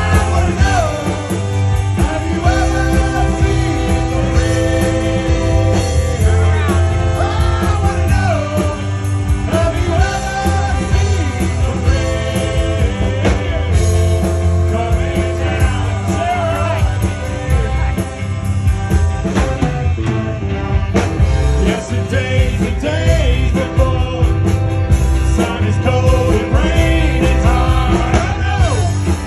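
Live beer-hall party band playing a rock-style number: men singing lead into microphones over tuba bass, accordion and a drum kit keeping a steady beat.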